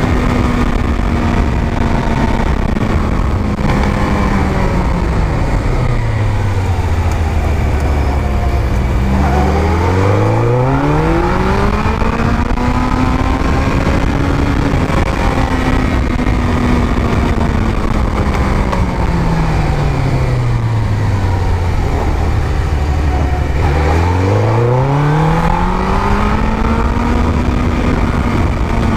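Suzuki GSX-R1000 inline-four engine heard from the rider's seat with wind noise. The engine pitch sinks slowly as the bike slows for a bend, then the revs climb quickly as it pulls away. This happens twice.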